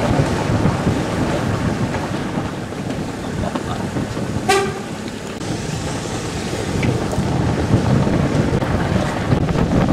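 Street traffic noise heard from a car driving slowly, a steady rumble, with one short vehicle horn toot about four and a half seconds in.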